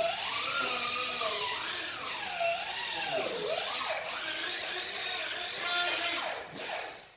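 Handheld power tool running at high speed, its whine rising and falling as it is loaded and eased off. It winds down and stops near the end.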